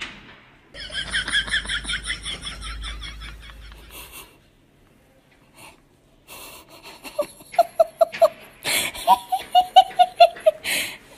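High-pitched giggling laughter in quick runs of pulses: one breathy run about a second in that fades out after about three seconds, then, after a short lull, two more runs of evenly spaced 'ha-ha' pulses in the second half.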